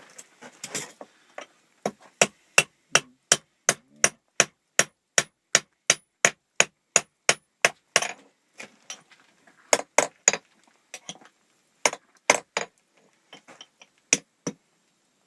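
Hammer striking hot iron on an anvil, forging a nail from bog iron. A fast, even run of ringing blows at about three a second goes on for about six seconds. After a pause come short groups of two or three blows.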